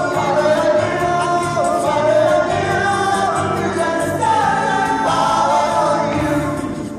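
Music: a song with voices singing a melody over instrumental accompaniment.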